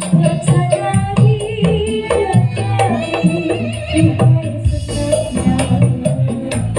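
Live band music played loud through a PA sound system: a busy beat of hand drums and shaker-like percussion under a melody line.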